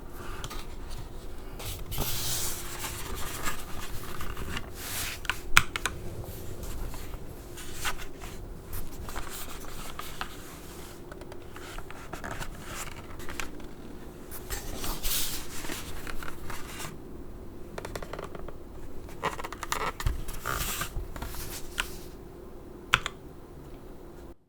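Irregular scraping and rubbing with scattered sharp clicks as a mechanical keyboard is handled and moved about, over a faint steady hum. The sound cuts off abruptly at the end.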